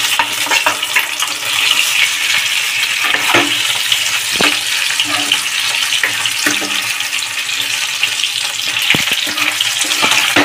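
Boiled potato pieces sizzling steadily in hot oil in a non-stick kadhai, with a steel spoon knocking and scraping against the pan now and then as they are stirred.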